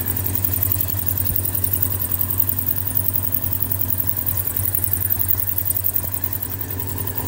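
2001 Triumph TT600's inline four-cylinder engine idling steadily.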